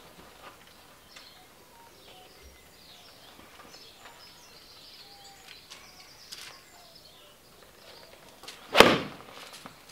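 A single sharp strike of a 7-iron hitting a golf ball off a hitting mat near the end, over faint birdsong.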